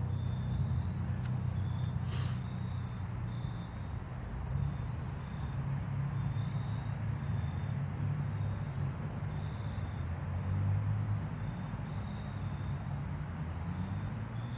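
Norfolk Southern diesel-electric locomotive's engine rumbling low and steady as it slowly pulls a freight train, the pitch drifting and rising slightly near the end. A faint, high-pitched, intermittent chirping runs over it.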